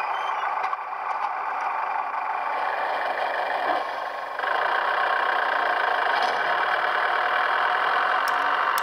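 Diesel railcar engine sound played by the LokSound V5 sound decoder through the small bass-enhanced speaker of a Heljan OO gauge GWR AEC railcar model while it runs. The engine runs steadily and gets louder about four seconds in.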